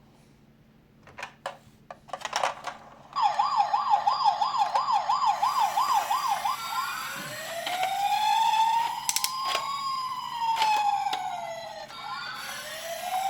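Toy ambulance minicar's electronic siren. After a few clicks, a fast warbling yelp starts about three seconds in, at roughly three cycles a second. Near the middle it switches to a slow wail that rises and falls, then starts rising again near the end.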